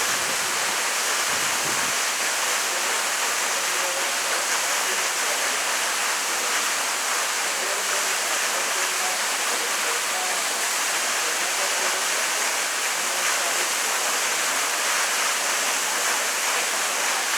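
Waterfall: water falling steadily into a pool, a constant, even rushing with most of its energy in the high hiss.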